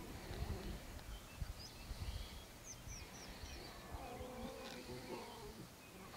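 Faint bush ambience: a small bird gives a quick run of four short, high, falling chirps about two and a half seconds in, with other scattered faint high calls over a low background rumble.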